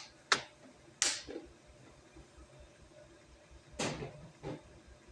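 A few sharp knocks and clicks of tools or metal parts being handled on a workbench: two in the first second, the second with a short ringing tail, and two more near the end.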